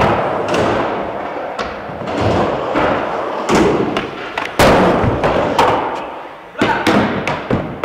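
Skateboard wheels rolling over a skatepark ramp, broken by sharp thuds and clacks of boards hitting and landing. The loudest slam comes about four and a half seconds in, and a quick run of knocks follows near the end.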